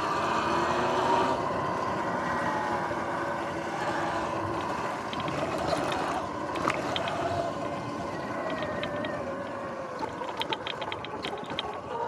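Sur-Ron X electric dirt bike running, its motor and chain drive whining in tones that rise and fall with speed, over tyre and wind noise. A quick run of clicks and rattles comes near the end as the bike rolls onto the rough dirt trail.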